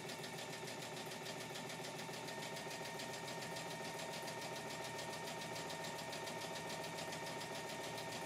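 Brother Innovis XV sewing and embroidery machine sewing a straight stitch at a steady speed: an even motor hum with a rapid, regular ticking of the needle strokes. Nice and quiet.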